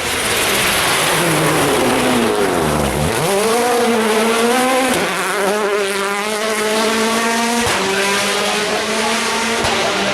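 Rally car engine at high revs passing close at speed. Its pitch drops steeply about two to three seconds in, then rises again in steps through several gear changes as it accelerates away, over the loud rush of tyres on the stage.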